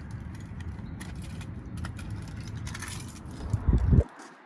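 Small clicks and light jingles of objects being handled and moved about in a car over a steady low rumble, ending in a heavy thump just before four seconds in, after which the rumble stops suddenly.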